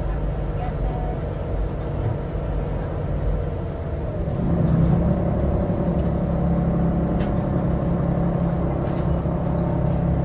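Ferry's diesel engines running steadily, heard from inside the passenger cabin as a low hum, which grows louder about four seconds in as the engines are throttled up.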